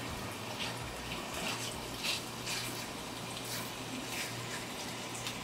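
Italian sausage meat frying in olive oil in a nonstick pan over medium-high heat: a low sizzle with scattered crackles.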